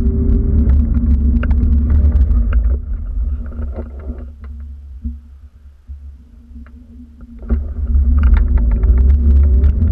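Wind buffeting the GoPro's microphone as a heavy low rumble with scattered light clicks. It dies away for a few seconds in the middle and returns at full strength about seven and a half seconds in.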